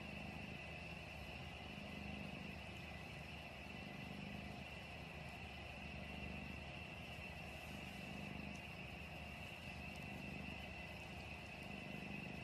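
Cat purring: a faint low rumble that swells and eases about every two seconds with each breath. A thin steady high tone runs underneath.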